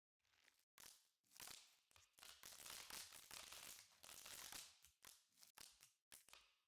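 Slime being squeezed and worked by hand, quietly squeaking, crackling and popping in an irregular run. It ends in a few separate sharp pops.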